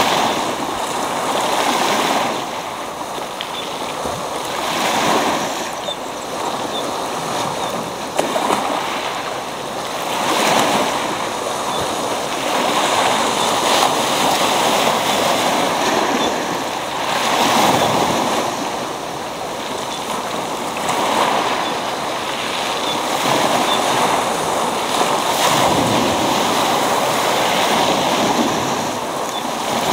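Sea waves breaking and washing up a pebble beach; the surf swells and eases every few seconds.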